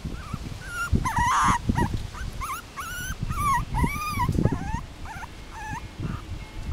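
Five-week-old miniature pinscher puppies whimpering and squeaking in a string of short high calls that rise and fall in pitch, over a low irregular rumble.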